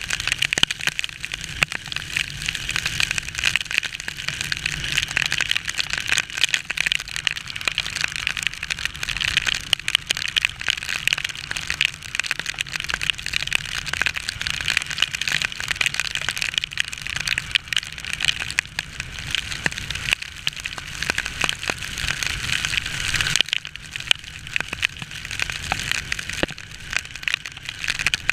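Heavy rain spattering on the camera in a dense hiss of fine ticks as a motorcycle rides through the downpour, over a low rumble of wind and the bike. The low rumble drops away about two-thirds of the way through.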